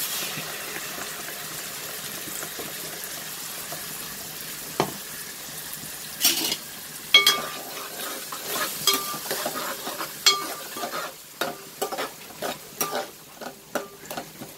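Ground tomato hitting hot oil in a pan of fried small onions and sizzling steadily. From about six seconds in, a metal ladle stirs and scrapes the metal pan, giving repeated ringing clinks over the sizzle.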